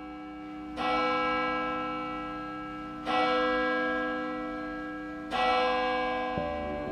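A large bell struck three times about two seconds apart, each strike ringing on and slowly fading, over a steady held tone. A deep low drone comes in near the end.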